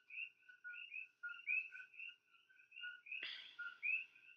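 A chorus of coqui frogs calling: repeated two-note 'co-qui' calls, a lower note followed by a higher upward chirp, overlapping several times a second. A single soft knock about three seconds in.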